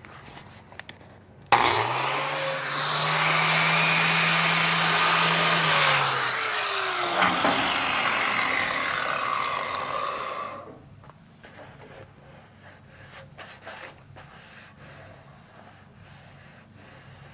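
Electric grinder spinning up about a second and a half in and grinding weld out of a steel car frame for about nine seconds, its motor pitch dropping about six seconds in, then stopping. Faint knocks and clicks follow.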